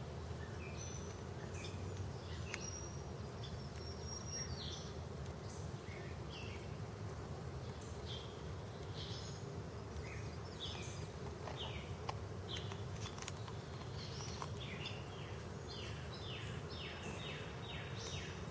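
Honeybees buzzing as a low, steady hum during a package installation, with birds chirping in runs of short falling notes.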